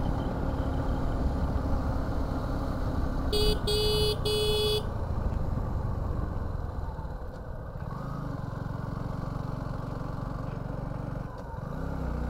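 Suzuki V-Strom 250 motorcycle engine running under load on an uphill ride, with three short beeps of a vehicle horn about three and a half seconds in. Near the end the engine note rises as it pulls.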